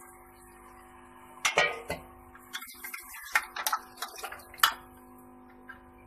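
Metal ladle knocking and scraping against the inside of a pressure cooker pot, a handful of sharp clinks spread through the middle seconds. Faint background music with steady held notes runs underneath.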